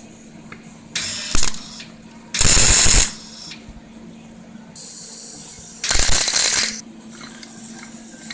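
MIG welder striking three short welds, each a loud crackling sizzle under a second long, with a low steady hum between them. The weld is tacking metal onto a bearing race seized in the gearbox case, so that a slide hammer can pull the race out.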